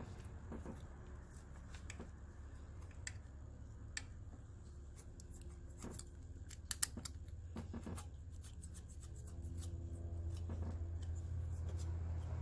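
Scattered small metal clicks and scrapes of a valve-adjusting tool and feeler gauge working at a rocker arm adjusting screw on a Honda 3.2L V6, setting the valve clearance; the loudest is a sharp double click about seven seconds in. A steady low hum runs underneath and grows louder near the end.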